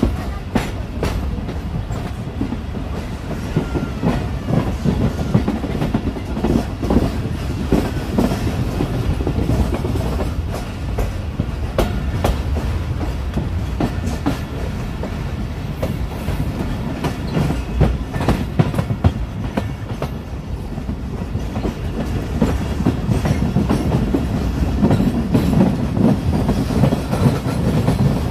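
Awam Express passenger train running on the track: a steady low rumble with the clickety-clack of wheels over rail joints and scattered sharp knocks, a little louder near the end.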